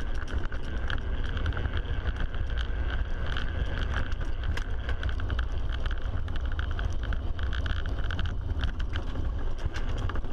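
Ride noise inside the enclosed fairing of a pedal-powered racing velomobile at speed: a heavy, steady rumble of wind and tyres on the track, with constant rattling and clicking throughout.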